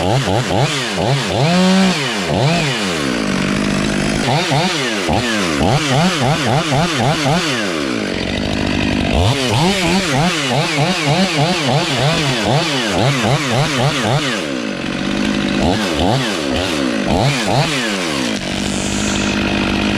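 Stihl two-stroke chainsaw cutting through the oak's trunk, most likely the felling back cut after the face cut. Its engine speed rises and falls over and over as the chain bites and is eased off. It settles to a steadier, lower running speed for a few seconds near the end.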